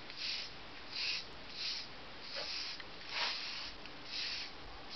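Hand wire brush scraping across fresh, still-soft cement mortar in short rasping strokes, about six of them, scoring a fine wood-grain texture into the surface.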